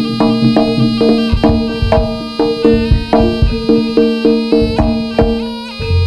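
Live jaranan gamelan music: kendang drum strokes and sharp pitched struck notes in an even beat of about two to three a second, over a long held note that stops near the end.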